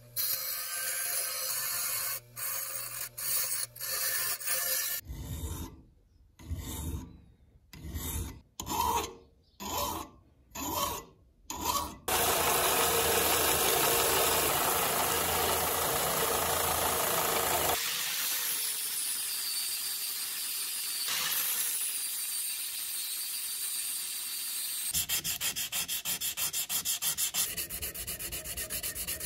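Several metal-finishing sounds in turn. A steel part grinds against a grinding wheel, then there are about eight slow, separate abrasive strokes on metal. From about twelve seconds in a benchtop belt sander runs with a steel part pressed to the belt, and near the end comes fast, even back-and-forth hand sanding of a metal part with 220-grit paper.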